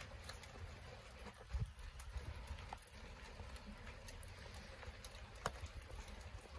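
Quiet outdoor ambience: a steady low rumble with scattered light taps and clicks, the most prominent about a second and a half in and again near the end.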